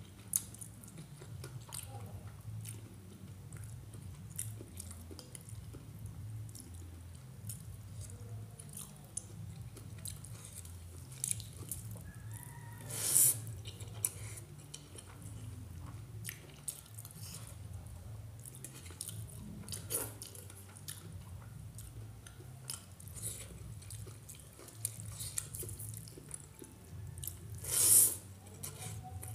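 Close-miked chewing and wet mouth clicks of a person eating rice and small-fish curry by hand. Twice, about halfway and near the end, there is a louder hissing burst as a handful goes into the mouth.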